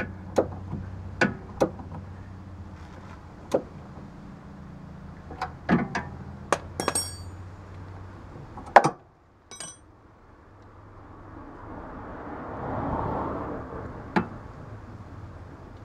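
Steel wrench clicking and clinking on the nut of a BMW E46 front sway bar end link as it is turned, in irregular sharp metallic taps, one ringing briefly about seven seconds in and a louder knock just before nine seconds. A soft rushing noise swells and fades near the end.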